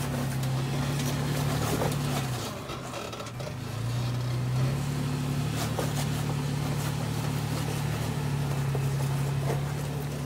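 Toyota FJ Cruiser's 4.0-litre V6 engine running at low revs while rock crawling, its note rising and falling as the throttle is eased off and fed in again, with a dip about two and a half seconds in.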